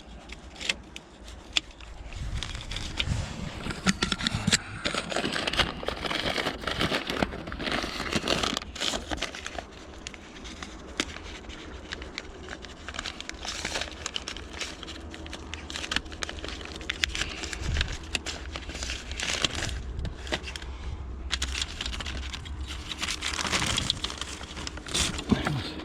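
A fibre-optic cable being handled and pulled by hand: irregular crinkling and rustling with many small clicks.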